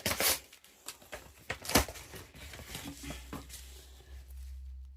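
Sticker packets and their plastic wrapping crinkling and rustling as they are handled, with sharper crackles at the start and about two seconds in.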